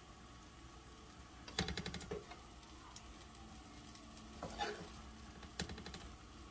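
Three short bursts of rapid light clicking as hands spread shredded cheese over a tortilla in a cast-iron skillet.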